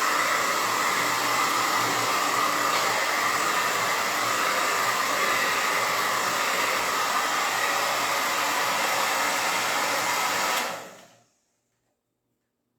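Handheld blow dryer running steadily, then switched off about ten and a half seconds in, its noise dying away within a second.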